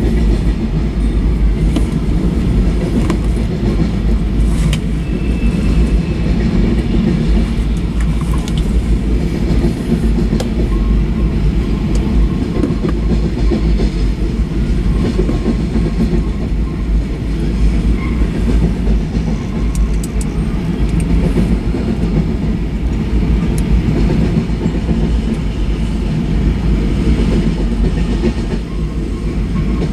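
Freight cars, covered hoppers and tank cars, rolling past: a steady heavy rumble of steel wheels on rail, with occasional sharp clicks.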